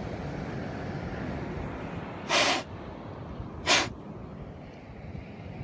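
Steady beach surf and wind noise, broken by two short, loud hissing rushes, one about two and a half seconds in and one near four seconds.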